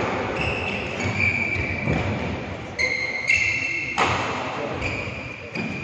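Badminton rally sounds: sports shoes squeaking on the court mat several times, and one sharp racket strike on the shuttlecock about four seconds in.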